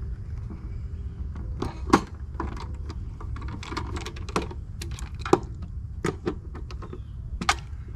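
Hands fitting a replacement control board into an RV water heater: scattered sharp clicks and taps of wire connectors and small metal parts, the loudest about 2, 5 and 7.5 seconds in, over a steady low rumble.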